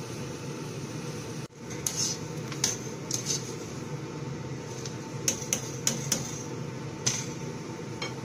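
Wire spider strainer clinking and scraping against a metal wok as duck bones are scooped out of boiling water: about ten short, sharp clinks at irregular intervals over a steady hiss.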